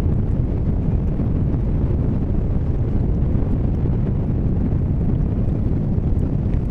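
Strong wind buffeting the camera microphone: a steady, loud, low rumble with no other distinct sound.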